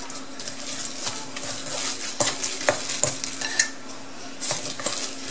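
Gloved hand mixing raw ground pork and chopped cilantro in a stainless steel bowl: wet squishing with irregular scrapes and taps against the bowl.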